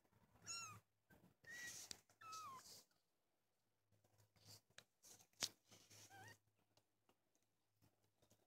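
Newborn kittens, a few hours old, giving thin, high-pitched mews: about four short calls, most falling in pitch and one rising near the end. A single sharp click about five and a half seconds in.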